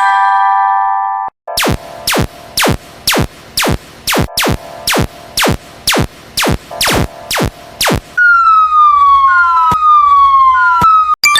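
Synthesized cartoon sound effects. A held electronic chord opens, then a run of sharp ringing strikes comes about twice a second for some six seconds. After that, a falling siren-like tone repeats three times, and the chord returns near the end.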